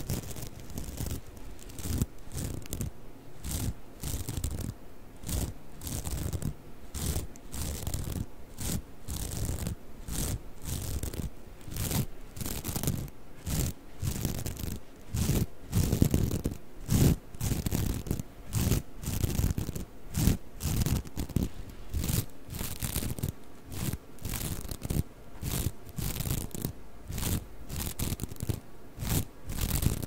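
Two round plastic mesh scrubbing pads rubbed and squeezed against each other close to the microphone, in a steady run of short scraping strokes, about two a second.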